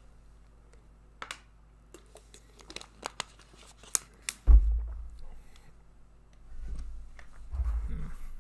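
Scattered clicks and crinkling of packaging being handled, with a dull thump about halfway through and low handling rumbles near the end.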